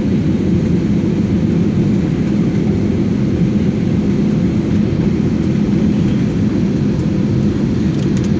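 Steady cabin noise of an Airbus A320-family jet airliner in flight, heard from inside the cabin: a constant low rumble of the engines and airflow.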